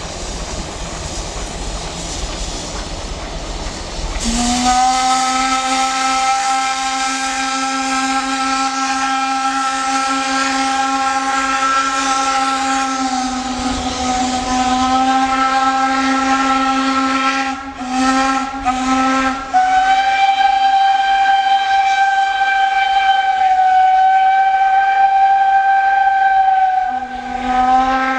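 Baldwin 2-8-0 Consolidation steam locomotive passing with a rumbling running noise, then its steam whistle blowing in one long, steady blast from about four seconds in, broken by a few short gaps about two-thirds through and sounding again to the end.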